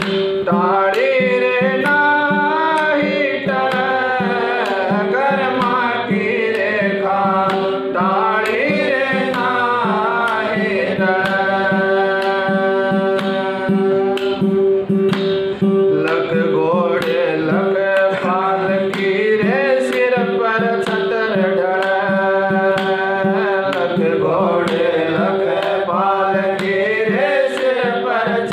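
A man singing a Hindi devotional bhajan with a bending, melismatic line, over a steady held drone and a regular beat of light taps.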